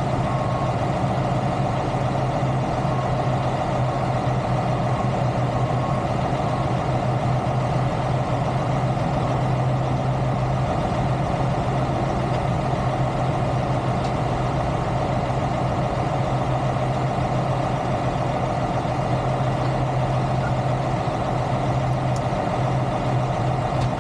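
Semi truck's diesel engine idling steadily, a constant low drone with no change in pitch.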